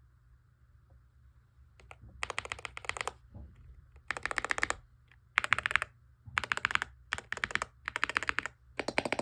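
Mechanical keyboard being typed on fast, in short bursts of rapid keystrokes with brief pauses between, starting about two seconds in.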